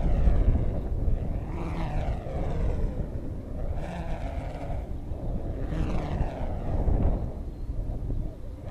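Revolution Supersonic stunt kite whooshing through the air in repeated fast passes, each swelling and fading, about every two seconds. A steady low rumble of wind on the microphone sits underneath.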